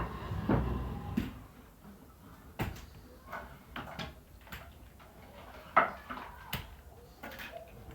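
A series of separate knocks and clunks, like doors or cupboards being handled, with a low thump near the start and the sharpest knock about six seconds in.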